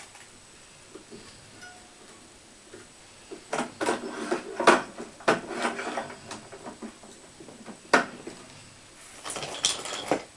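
Clicks and light metallic clattering from a Babolat VS 2001 racket stringing machine being worked by hand. A cluster of rattling clicks comes about three and a half seconds in, a single sharp click around eight seconds, and another cluster near the end.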